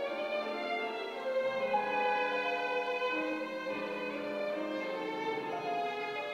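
Solo violin and grand piano playing Romantic classical music: a singing, legato violin line of held notes over piano accompaniment.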